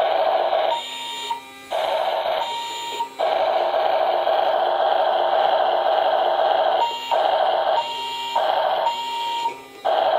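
Electronic sound effects from a remote-control toy bus, played through its small built-in speaker: a tinny, buzzy sound that drops out briefly several times, with short beeps in between.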